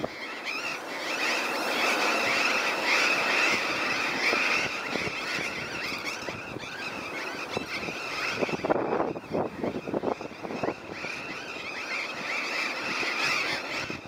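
A large flock of burrowing parrots calling in flight, a dense, unbroken chorus of many overlapping high-pitched screeches, with a few louder, separate calls about two-thirds of the way through.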